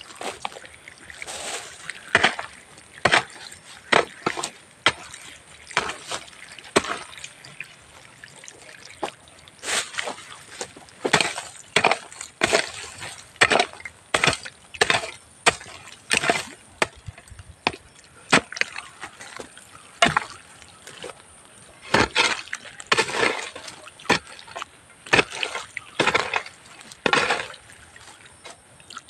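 A hoe scraping and chopping into loose soil, backfilling earth around a newly planted durian seedling, in repeated short strokes about one a second.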